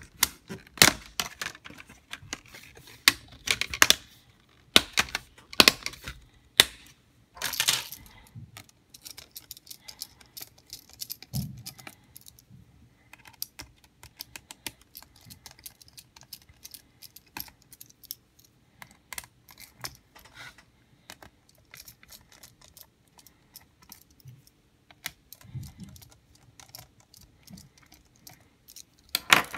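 Plastic screen bezel of an Acer C720 Chromebook being prised off by hand, its clips coming loose in a run of sharp clicks and snaps over the first eight seconds or so. Then fainter scattered clicks and small knocks follow as a small screwdriver works at the LCD panel's screws and the panel is handled.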